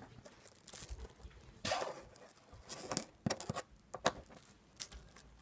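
Small plastic Lego bricks being handled: scattered light clicks and brief rustles at irregular moments.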